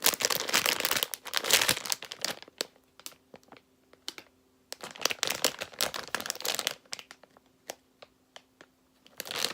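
Crinkling of a plastic packaging bag as a squishy toy is handled, in two spells of rustling, one over the first two seconds and one around five to seven seconds in, with small scattered crackles between.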